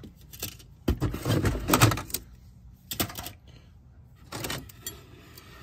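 Loose sections of old metal toy train track clattering and scraping as they are lifted and handled: a longer burst of clinking about a second in, then two shorter ones.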